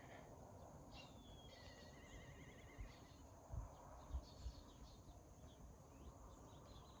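Faint dawn birdsong: scattered high chirps and a short warbling trill from small songbirds over a quiet outdoor hush, with a few brief low thumps around the middle.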